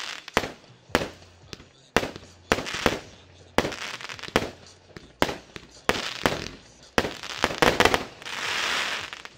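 A 100-shot, 20 mm fireworks cake firing its final shots: sharp reports about every half second, each trailed by crackle. Near the end comes a dense spell of crackling that dies away.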